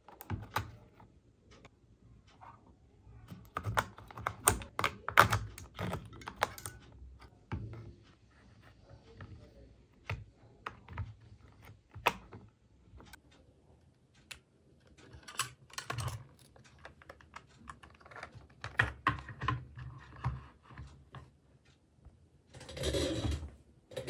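Irregular clicks and knocks of hard plastic as hands handle a toy RC car's underside and battery compartment, in clusters with gaps between, and a denser noisy burst lasting about a second and a half near the end.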